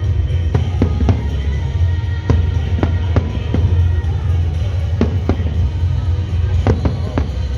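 Aerial fireworks bursting in irregular sharp cracks and bangs over a continuous deep rumble. Music plays at the same time.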